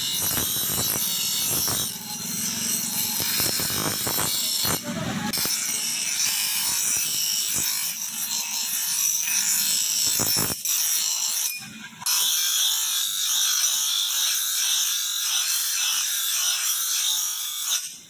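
Electric bench grinder's stone wheel grinding a steel blade: a steady, loud hissing rasp of metal on the wheel. It eases twice, about five seconds in and again near twelve seconds, as the blade comes off the wheel.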